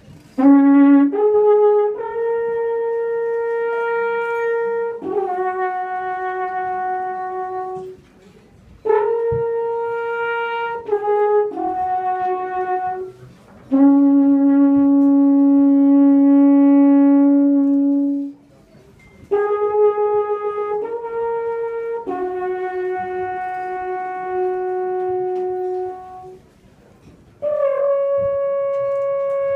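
Alphorn playing a slow melody of long held notes, in four phrases separated by short pauses, with one low note held for about four seconds near the middle.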